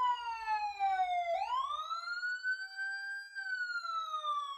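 Wailing siren, as on the cartoon fire truck: its pitch glides slowly down, sweeps back up from about a second in, then glides down again.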